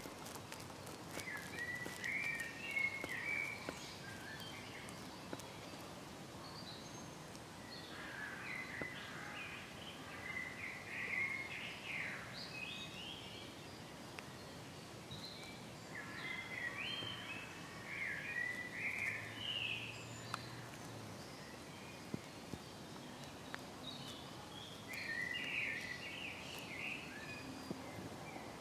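A songbird singing short phrases of varied high chirps, four times with pauses of several seconds between, over a steady outdoor background hiss.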